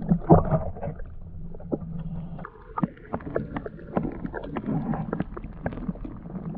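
Muffled underwater sound through a submerged camera's microphone: a low rumble of moving water with many short clicks and knocks. A couple of louder knocks come right at the start.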